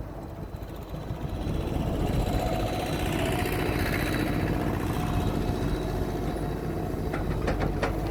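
Excavator's diesel engine running steadily, with a few sharp knocks near the end.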